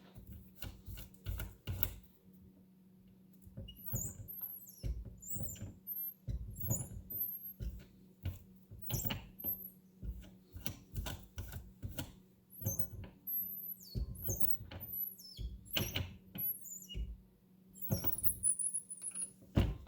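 Metal reloading press and die being worked and adjusted while setting a crimp: many short clicks and knocks, with brief high-pitched squeaks scattered among them.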